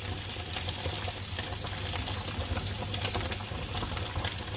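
Browned, crispy smoked pancetta sizzling in its frying pan, with a steady hiss and many small irregular crackles of spitting fat.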